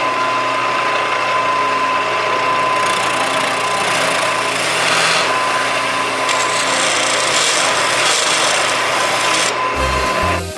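Wood lathe running with a steady whine, and from about three seconds in a turning gouge cutting into the spinning maple leg blank, a loud, continuous shaving hiss that stops just before the end.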